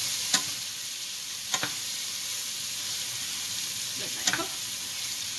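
Chicken and spices frying in a pan, sizzling steadily as a wooden spatula stirs them, with three short knocks and scrapes of the spatula against the pan.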